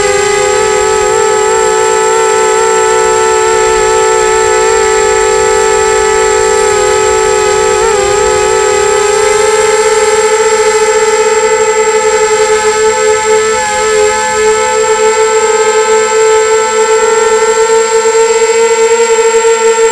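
Quadcopter's electric motors and propellers whining steadily, close up from its onboard camera; the pitch steps up slightly about nine seconds in as the motors speed up.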